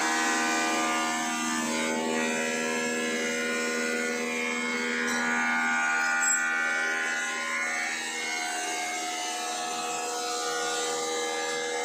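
A 36-inch woodworking bandsaw running steadily, giving a continuous hum made of several steady tones.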